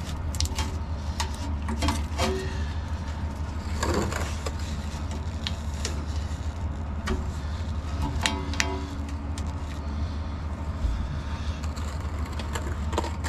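Black electrical tape being pulled off the roll and wrapped around a truck's wiring harness: irregular crackles, clicks and rustles of the tape and hands on the harness, over a steady low rumble.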